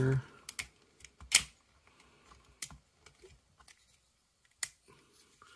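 Plastic parts of a Transformers action figure clicking and snapping as they are folded and tabbed into place. The clicks are sharp and scattered, with the loudest about a second and a half in.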